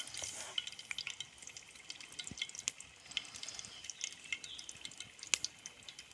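Faint, irregular crackling and popping from a hot cooking pot on a coal fire, a sharper pop about five seconds in.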